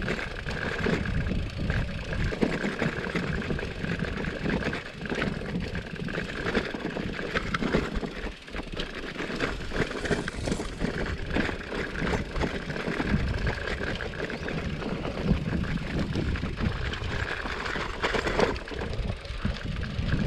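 Gravel bike rolling over a bumpy dirt track: wind buffeting the microphone over the rumble of the tyres, with frequent small knocks and rattles from the bike on the rough ground.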